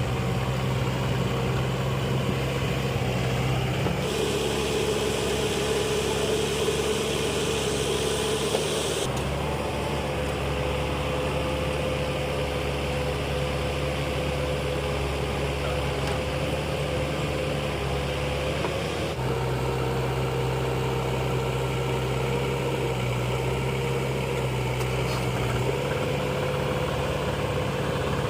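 Diesel engines of a backhoe loader and farm tractors running steadily at a worksite. The engine sound changes abruptly about 4, 9 and 19 seconds in.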